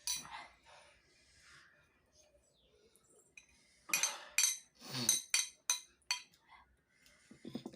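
Cutlery clinking against a dish during eating, with a quick cluster of about six sharp clinks in the second half.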